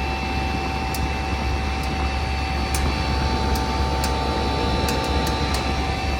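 Lasko portable heat pump running in heat mode, a steady hum from its compressor and fan with a few steady whining tones above it, while its coils freeze up. A few light ticks come through the hum.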